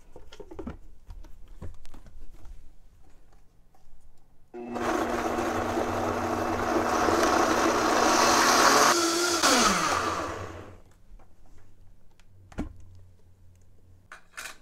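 Vitamix blender motor switching on suddenly about four and a half seconds in and blending a cashew sauce, growing louder for several seconds. It then winds down with a falling pitch and stops about ten seconds in. Light handling clicks come before it.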